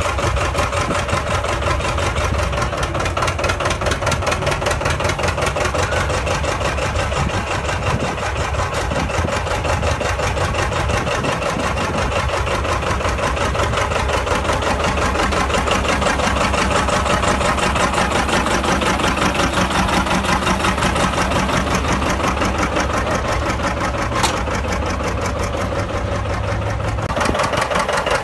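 John Deere 80 tractor's two-cylinder diesel engine running, with a steady, rapid beat of firing pulses.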